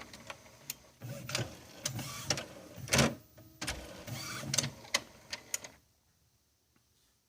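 Epson WorkForce Pro WF-3720 inkjet printer running its ink initialization after a cartridge change: the internal mechanism whirs in short runs with many clicks and a louder clunk midway, then goes quiet about six seconds in.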